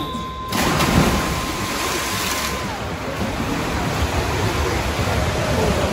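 Electronic start signal for a swimming race, a steady tone lasting about two and a half seconds. From about half a second in it is joined by loud, continuous splashing as the swimmers dive in and race.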